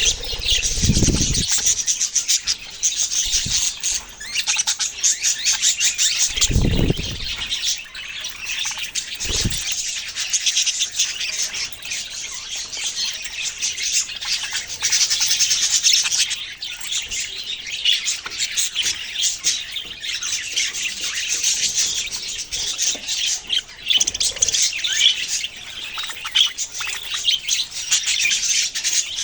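Many small birds chirping at once in a dense, unbroken chatter of high tweets. A few brief low thumps come in the first ten seconds.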